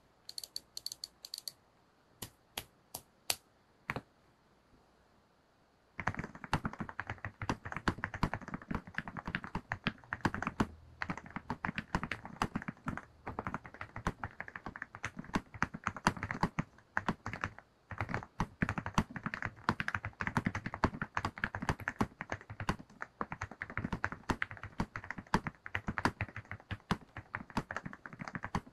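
A few scattered sharp clicks, then from about six seconds in, fast continuous typing on a custom mechanical keyboard fitted with lubed and filmed NovelKeys NK Cream linear switches and GMK ABS keycaps.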